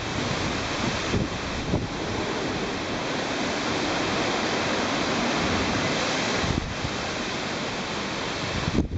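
Heavy typhoon surf rushing and breaking, with strong wind buffeting the microphone in low gusts. The surf noise swells through the middle and eases slightly past the two-thirds mark.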